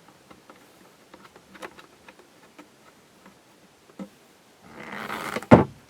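Small metallic clicks and taps from handling the underside of a cast-iron Singer 201K sewing machine while its feed dogs are dropped, then a short scraping rustle and one loud knock near the end.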